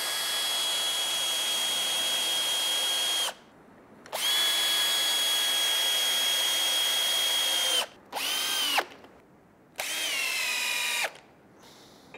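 Power drill driving screws through steel hinge plates into a timber fence post: two long runs of a few seconds each, then two short bursts, each a steady high whine that winds up at the start and down at the end.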